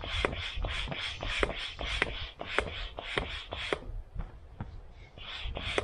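Hand pump inflating an inflatable PVC kayak: a rhythmic whoosh of air with a click on each stroke, about three strokes a second, pausing about four seconds in and then starting again.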